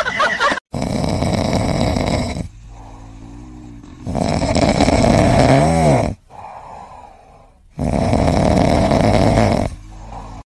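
A sleeping cat snoring loudly: three long snores about two seconds each, spaced about three and a half seconds apart, with quieter breaths between. The second snore ends in a wavering pitched tone.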